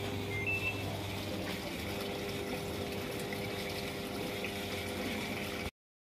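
Automatic washing machine filling with water from the tap through its inlet hose: steady flow and hum, with two short high beeps about half a second in. The sound cuts off near the end.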